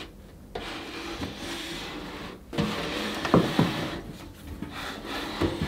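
Aerosol hair-styling spray hissing in two long bursts onto a mannequin's hair, with a few light knocks from handling in between.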